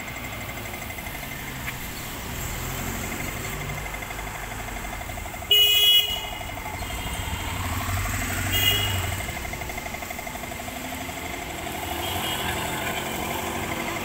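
Busy street traffic with vehicle horns honking: one loud horn blast lasting about half a second midway, and a shorter, weaker horn a few seconds later, over a steady rumble of passing vehicles.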